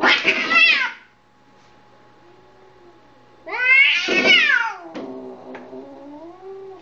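Two cats yowling and screeching at each other in a fight: a loud screech at the start and another about three and a half seconds in, with low, wavering growls between and after.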